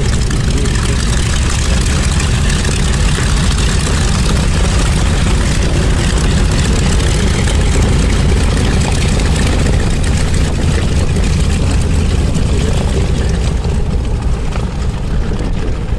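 Piston-engined propeller warbird's engine running steadily, a loud, even drone with no rise or fall in pitch.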